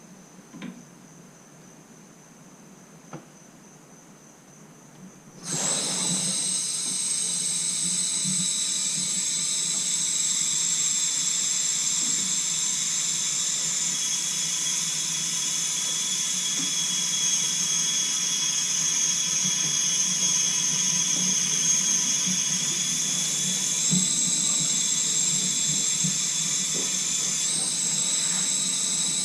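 Water rushing through a just-opened valve on a Navien tankless water heater's piping. It starts suddenly about five seconds in and goes on as a steady loud hiss with a high whistle.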